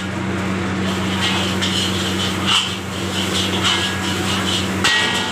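Metal ladle scraping and clanking against a steel wok as fried rice is stir-fried, in repeated short strokes about every half second, with a steady low hum underneath. Near the end the wok rings with one sharper metallic clang.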